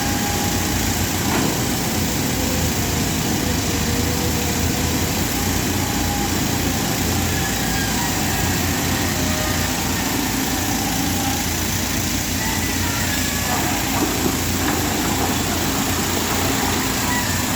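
Diesel engine of heavy construction machinery running steadily at a constant speed.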